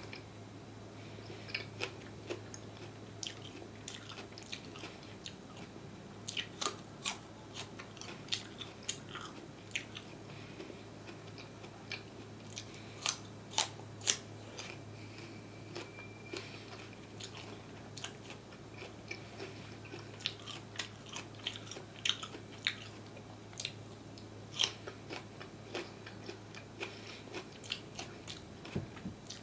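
Close-miked chewing and biting of crispy pickled cucumbers: irregular crunches and sharp crackles, with wet mouth clicks between them, over a faint steady hum.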